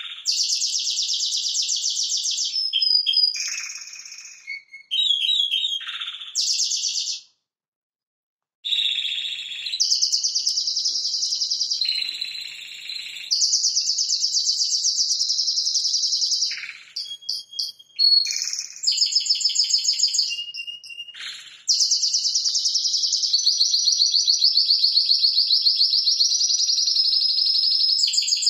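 Spanish Timbrado canary singing: fast, evenly pulsed trills in phrases of one to several seconds, ending in one long unbroken trill. About seven seconds in, the song breaks off completely for a moment.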